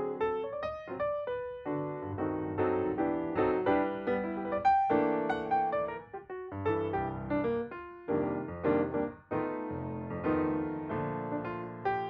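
Background piano music, a steady flow of struck notes with two short pauses.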